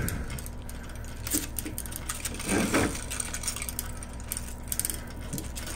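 Roller blind being worked by its bead chain: scattered light clicks and rattles of the chain and roller mechanism over a steady low hum.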